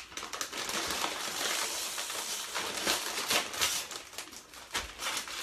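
Crinkling and crackling of a plastic bag of tortilla chips being pulled open and handled, a dense run of crackles that eases off near the end.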